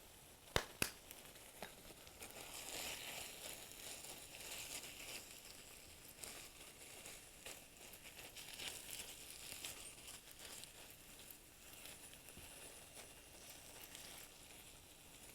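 Ground meat with onion and tomato sizzling softly in a frying pan, with two sharp clicks less than a second in.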